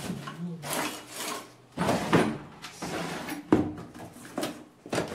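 Objects being rummaged and moved about on and under a wooden table: a string of scrapes, rustles and knocks, with a sharp clack about three and a half seconds in and another near the end.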